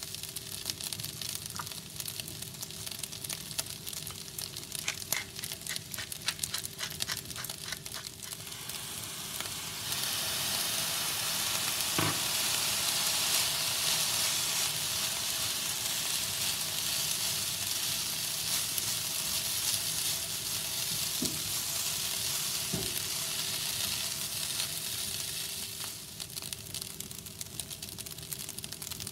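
Rice frying in butter in a hot cast iron skillet, sizzling while a spatula scrapes and taps against the pan. About ten seconds in the sizzle turns suddenly louder as soy sauce hits the hot pan, then eases off again near the end.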